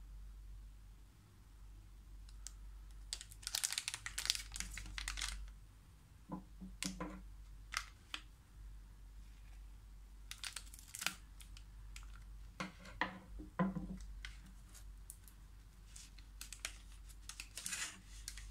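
Plastic chocolate-pack wrapper crinkling as it is handled and cut open with scissors, in several short spells with sharp snips and clicks between them.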